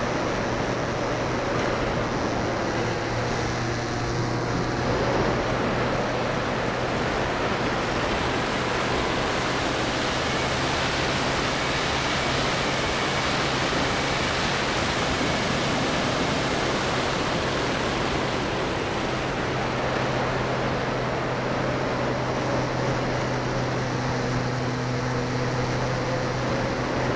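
Steady rushing of airflow over the keychain camera's microphone on a model glider in flight, with a constant low hum underneath.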